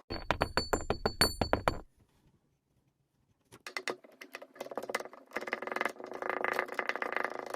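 Kinetic sand being squished and crumbled: a fast run of sharp crunching clicks, a cut to silence for about a second and a half, then a longer stretch of dense fine crackling.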